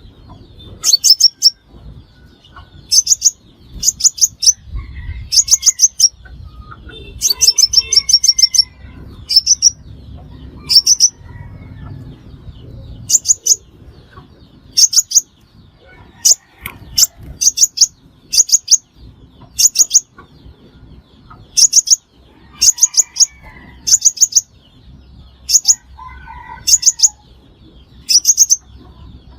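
Sunbird (the Vietnamese 'hút mật xác pháo') calling: quick clusters of two to six sharp, very high ticking notes, repeated every second or two.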